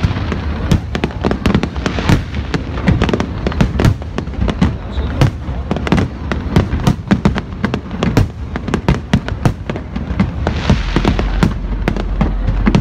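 Fireworks display going off in a dense, continuous barrage: many sharp bangs a second over deeper booms.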